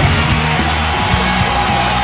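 Loud rock music with electric guitar and a moving bass line.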